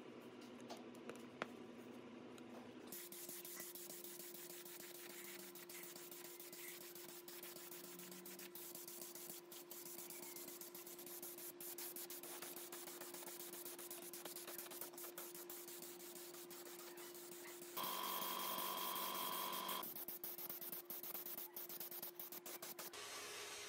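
A few light metal clicks from a screwdriver on a small gas-stove valve, then an air spray gun hissing steadily as it sprays paint onto the stove's sheet-metal body. The hiss grows louder for about two seconds near the end.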